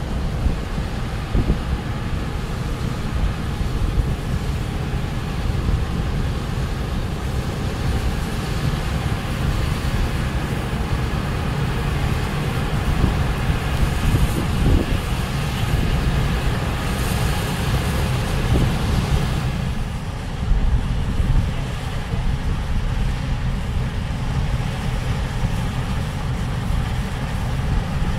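Massey Ferguson IDEAL 7PL combine harvester running steadily while cutting wheat, with a tractor running alongside.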